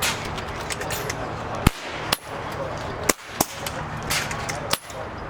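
PCP air rifles firing along a benchrest line: about six sharp cracks at irregular intervals within five seconds, from several shooters. A steady low hum and hiss lies underneath.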